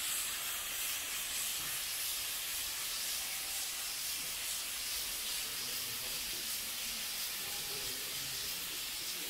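Steady hiss of steam jetting from the bent nozzles of a replica Heron's ball (aeolipile) spinning fast on its boiler; the escaping steam is what drives the ball round by recoil.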